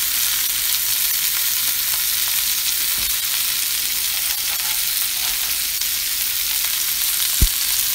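Ground beef, sliced red onion and sweet pepper sizzling steadily in hot olive oil in a stainless-steel skillet, with a single short knock near the end.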